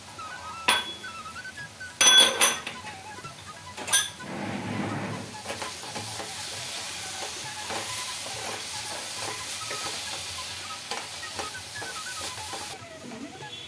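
A spatula stirring grated coconut cooking in jaggery in a non-stick pan. A few sharp clinks of metal on the pan come in the first four seconds, the loudest about two seconds in, then a steady sizzle as the mixture cooks, cutting off near the end.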